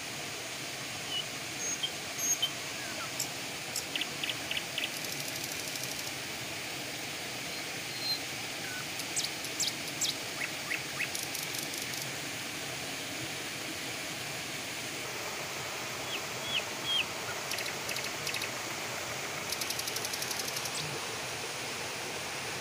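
Outdoor ambience: small birds giving short chirps and whistles, with a few rapid buzzy trills, over a steady rushing hiss.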